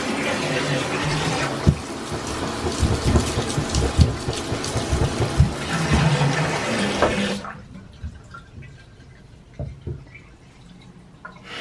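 Shower running with the water draining freely through a just-unclogged drain, with irregular low gurgling thumps, until the water is shut off abruptly about seven seconds in; a few small knocks and drips follow.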